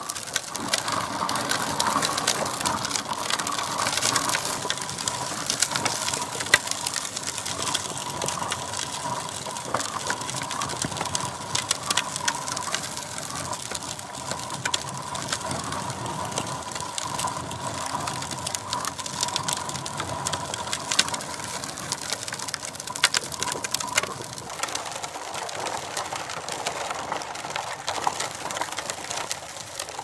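Plastic wheels of a Big Wheel toy tricycle rolling and crunching over gravel, with scattered clicks of stones against the wheels. A steady high hum runs under the crunching and stops about 24 seconds in.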